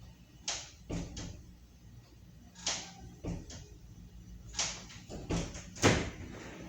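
A string of about ten irregular knocks and clacks of hard objects being handled, with the loudest one near the end.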